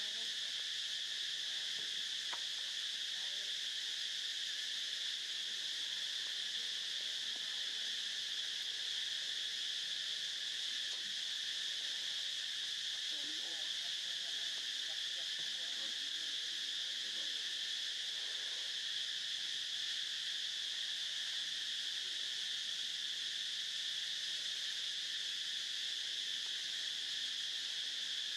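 Steady, unbroken chorus of insects: a constant high-pitched buzzing hiss that keeps the same level throughout.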